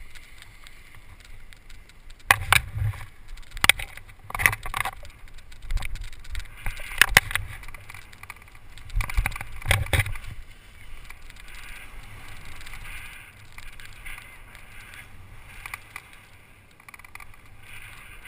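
Wind rushing over the microphone during a paraglider's towed launch run, with a run of irregular heavy thumps and knocks from about two to ten seconds in, then steadier wind noise as the pilot lifts off.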